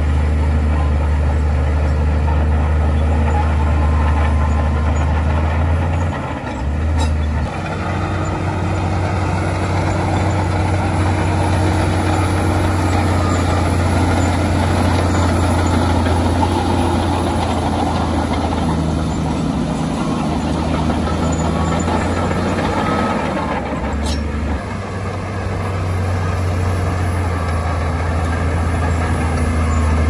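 LiuGong crawler bulldozer's diesel engine running steadily under load as it pushes dirt, a strong low drone that dips briefly twice.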